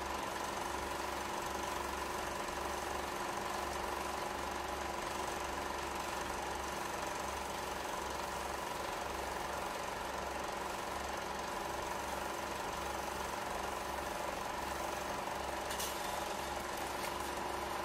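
Film projector running: a steady, rapid mechanical clatter with a constant hum, and a few faint clicks near the end.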